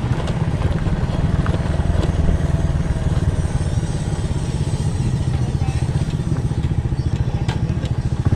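Motorcycle engine idling steadily with an even, rapid low pulse, and a few faint clicks.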